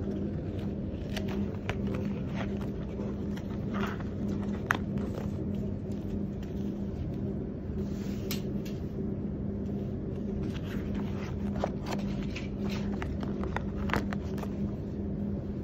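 A steady machine hum with a low drone runs throughout. Scattered light clicks and rustles come from fabric sample swatches and binder pages being handled.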